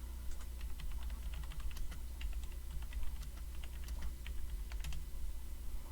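Typing on a computer keyboard: a run of quick, irregular keystroke clicks over a steady low hum.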